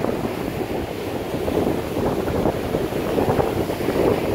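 Rough ocean surf breaking and washing up the beach, with gusty wind rumbling on the microphone.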